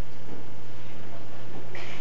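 Steady low electrical hum over background hiss, with a short noise near the end.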